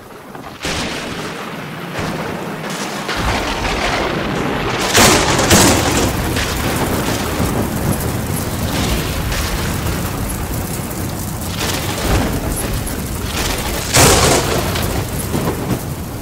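Effect soundtrack of steady heavy rain, with a low rumble coming in about three seconds in and loud booms about five seconds in and again near the end.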